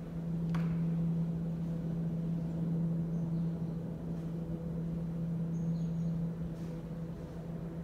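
Steady low-pitched hum of the TPP-23 combined heat and power plant: one unbroken tone with fainter overtones above it, swelling slightly in the first second. The plant noise resonates in a residential courtyard, which makes it much louder.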